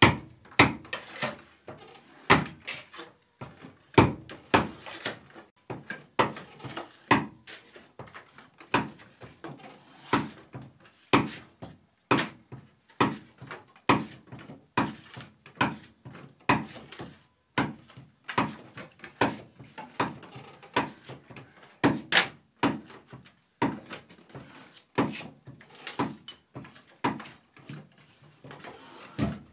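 Wooden mallet striking the back of a froe blade set into a wooden block, splitting off roof shingles by hand. Sharp knocks come roughly one or two a second, with short pauses between runs of blows.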